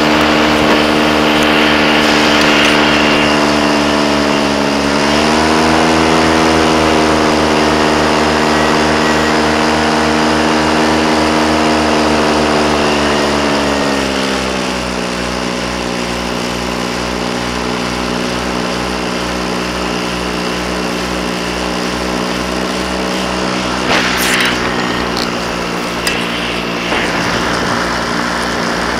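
Small light-aircraft engine running in flight, heard with a rush of wind. Its pitch rises about five seconds in and drops lower at about fourteen seconds as the throttle is opened and then eased back; a short rustling burst near the end.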